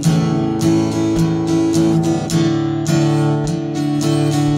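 Acoustic guitar strummed steadily with no singing, a chord stroke about every half second, the chords ringing between strokes.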